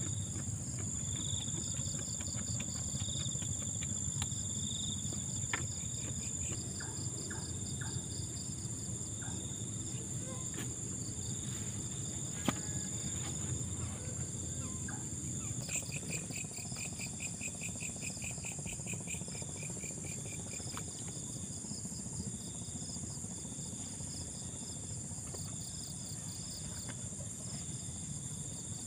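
Night chorus of crickets and other insects chirping: a steady high trill with several rows of pulsed chirps at different pitches, another fast chirp joining about halfway through. A low steady rumble lies underneath, and a single sharp click sounds near the middle.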